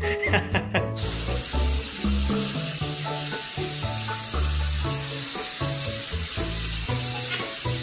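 Small toy quadcopter drone's propellers spinning, a steady high hiss that starts abruptly about a second in. Background music with a low bass line plays throughout.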